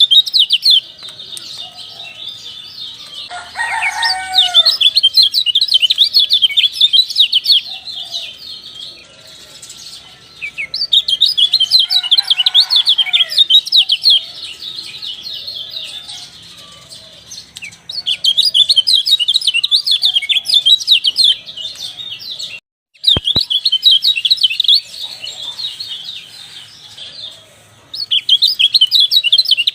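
Kecial (a white-eye) singing in long phrases of fast, high chattering chirps, with short pauses between phrases. A lower gliding call sounds twice, and the sound drops out briefly about 23 seconds in.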